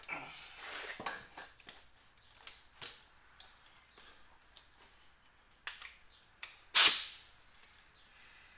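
Small clicks and scrapes of hand tools at a truck's front wheel hub, then, about seven seconds in, one short loud hiss that fades within half a second, a can of penetrating oil being sprayed onto the lug nuts.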